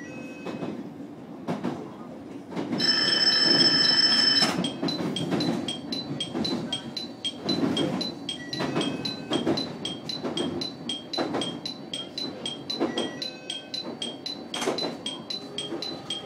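Inside the cab of a JR Kyushu electric train: a loud electronic warning tone sounds for about two seconds, then a short high chime repeats about twice a second. Beneath it are the train's running rumble and the clack of wheels over rail joints and points.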